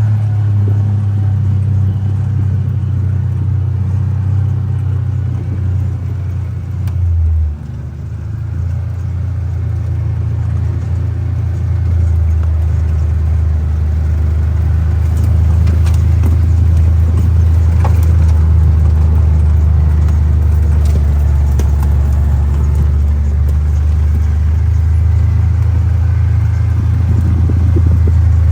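John Deere Gator utility vehicle's engine running with a steady low drone while driving. The engine note drops sharply about seven seconds in and builds back up over the next few seconds, with a few light knocks and rattles along the way.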